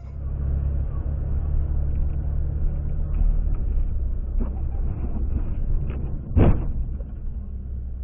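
Low, steady rumble of a car in motion, with a single loud thump about six seconds in.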